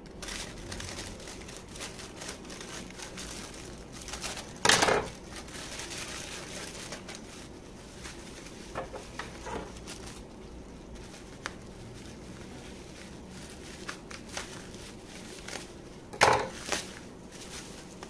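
Plastic courier mailer and bubble wrap crinkling and rustling as they are handled and pulled open, with two louder, sharp bursts, about five seconds in and again near the end.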